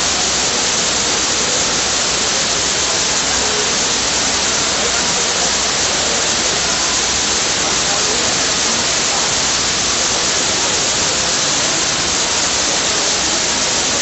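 Tall man-made waterfall: water sheeting down a multi-storey wall and splashing into the pool at its foot, a steady rushing hiss that never changes.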